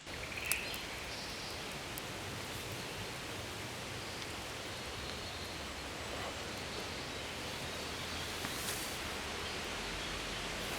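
Wind rushing through the trees overhead: a steady rustling hiss, with a few faint clicks.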